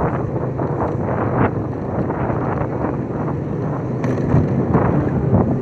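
Wind buffeting a handheld phone's microphone on a moving motorbike, over the steady hum of motorbike engines in city traffic.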